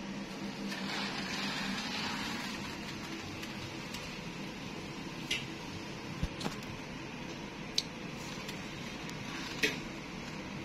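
Steady hum of room air conditioning, with a soft swish of curtain fabric about a second in, then a few short clicks scattered through the rest.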